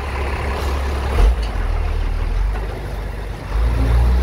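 Vehicle engine running as it drives along a dirt track, with a low thump about a second in and the engine getting louder, its pitch showing, about three and a half seconds in as it pulls harder.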